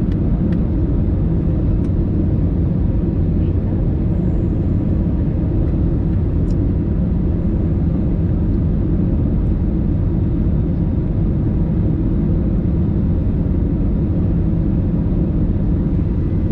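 Steady low rumble of airliner cabin noise from a window seat over the wing of an easyJet Airbus A320-family jet, its engines and airflow heard on final approach. A few faint clicks sound over the rumble.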